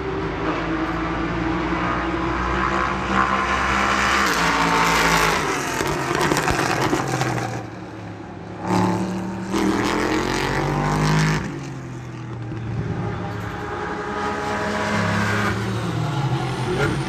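Race car engines running at high revs, their pitch sweeping down and back up several times as cars pass at speed.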